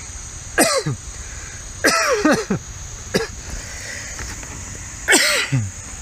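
A man's short, wordless, cough-like vocal sounds, four of them spread across a few seconds. Each starts with a noisy burst and falls in pitch.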